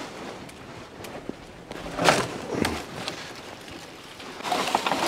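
Dead tree branch being pulled down by hand: it cracks sharply twice about two seconds in, then near the end comes down through twigs and dry leaves with a dense crackling and snapping.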